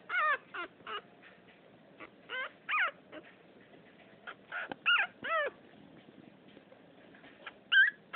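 French poodle puppy whimpering: short, high-pitched, wavering whines in little clusters, with pauses of a second or two between them.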